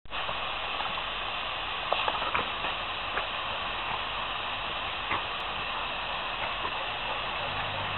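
Garden hose spray nozzle hissing steadily as its spray plays over a dog, with a few faint ticks about two seconds in.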